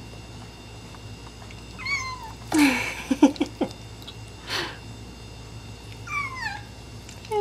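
Abyssinian kitten crying while it eats, protesting its first meal of raw greens mixed with canned food: short meows that fall in pitch, about two seconds in and again near six seconds, with a lower cry starting at the very end. In between come a louder noisy burst and three sharp clicks.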